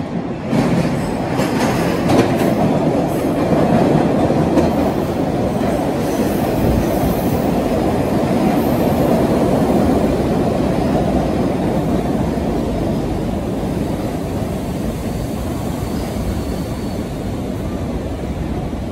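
MBTA Red Line subway train running along the station platform: a loud, steady rumble of wheels on rail that comes up within the first second and eases a little toward the end.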